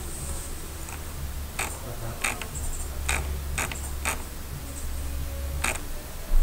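Computer mouse clicking about seven times at irregular intervals, over a steady low hum.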